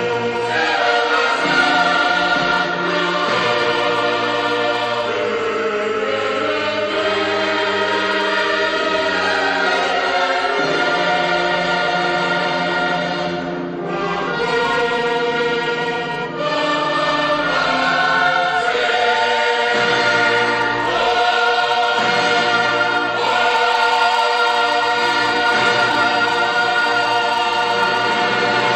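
A large mixed choir singing a hymn in full chords, accompanied by a brass band of cornets. It is loud and sustained, with a short lull about halfway through.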